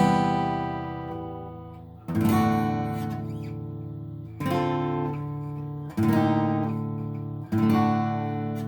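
Washburn WD11S acoustic guitar with a cracked back, strummed in single full chords, five times, each left to ring out and fade before the next, about every two seconds.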